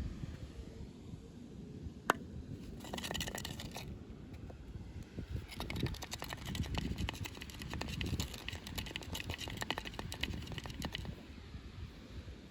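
Crinkling and rustling of plastic packaging as a toy box is handled and opened, in two spells: a short one and a longer one of about five seconds. A single sharp click comes about two seconds in.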